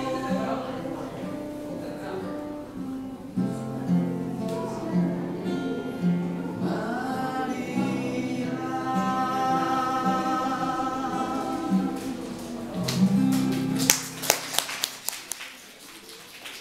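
A man singing to his own strummed roundback acoustic guitar. The song ends on a held chord about thirteen seconds in, followed by a run of sharp claps as the music dies away.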